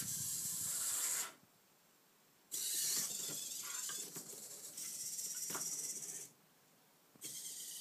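Futaba RBT-1 humanoid robot's servo motors whirring with a high, hissing sound as its legs and arms move, in three bursts separated by pauses of about a second when it stands still.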